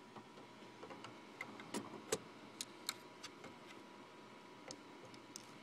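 Plastic microfilm reel being pushed onto the reader's spindle: a series of light clicks and knocks, most of them bunched in the first half, over a faint steady tone.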